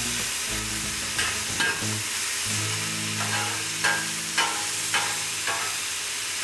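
Chopped vegetables sizzling in oil on a hot Blackstone flat-top griddle, with a metal spatula scraping and turning them on the steel plate in several sharp strokes.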